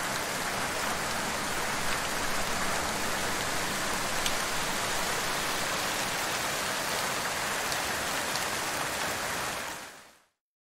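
Steady, even rainfall with a few separate drops ticking through it, fading out to silence about ten seconds in.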